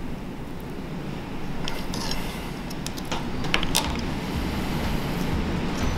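Thin metal crab pick scraping and clicking against the shell of a cooked brown crab claw while picking out the meat, a few sharp clicks between about two and four seconds in, over a steady low rumble.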